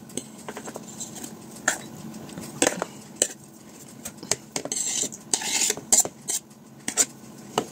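Metal fork scraping and tapping as chopped tomatoes are pushed off a wooden cutting board into a bowl: scattered clicks and knocks, with short scraping rustles about five seconds in.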